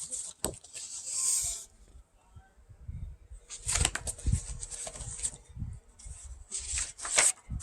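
A paperback picture book being handled: its pages rustle and are turned, with a few light knocks and taps against the cover.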